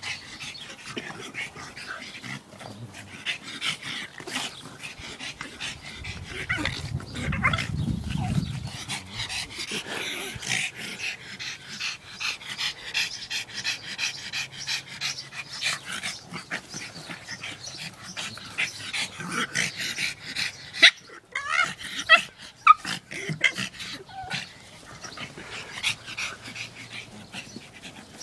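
Two pugs play-fighting, making pig-like grunting and snorting noises in quick, irregular succession. Two sharper, louder cries come about three-quarters of the way through.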